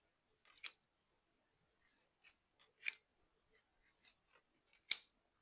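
Oracle deck cards being handled and flipped one at a time: about seven short papery swishes and light taps at uneven intervals, the loudest near the end.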